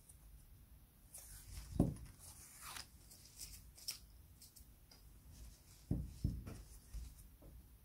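Small metal parts of an antique crepe iron handled over a felt mat: soft thuds about two seconds in and again around six seconds, with light metal clicks and scrapes in between.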